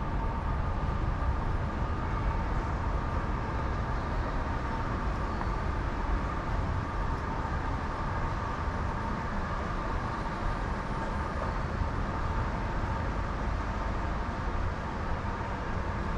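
Steady low rumble and hum of an underground subway platform, with a couple of faint steady tones running through it.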